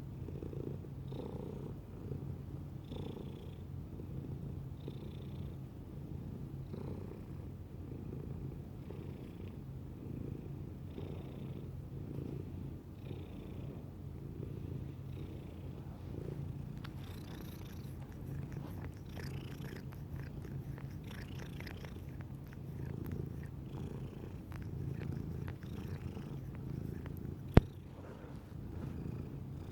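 Domestic cat purring steadily, the purr swelling about every two seconds. One sharp click near the end.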